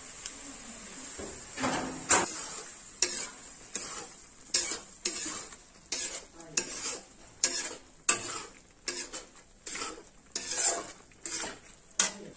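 Steel spatula scraping and knocking against a metal kadai as thick, sizzling tomato masala is stirred and mashed, at about one and a half strokes a second. The strokes start after a second or so of quieter sizzling.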